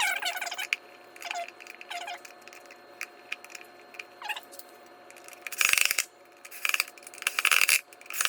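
Metal washing-machine drive parts being handled and fitted, clinking and scraping: a few short scrapes in the first half, then a run of louder clanks and rattles near the end.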